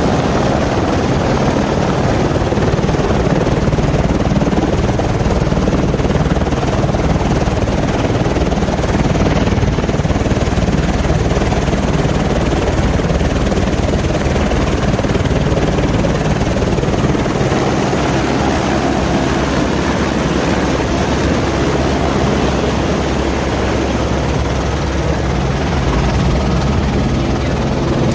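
Helicopter engine and rotor running steadily, loud and unbroken, with the aircraft sitting on the ground before take-off.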